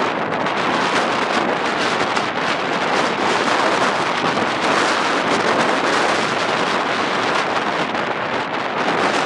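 Hurricane-force storm wind over rough harbour water with waves breaking, a loud, steady rushing noise.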